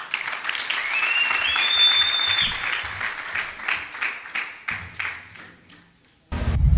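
Audience applauding, with someone whistling a tone that steps up in pitch about a second and a half in; the clapping dies away, and a loud music sting with a whoosh breaks in near the end.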